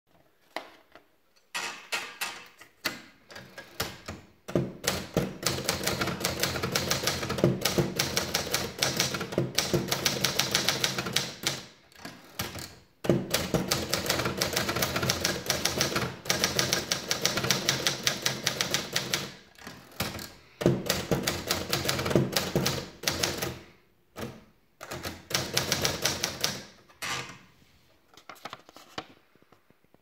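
Triumph Gabriele 25 manual typewriter being typed on: long runs of rapid key and typebar clacks, broken by short pauses between lines. A few scattered clicks come first as the paper is wound in.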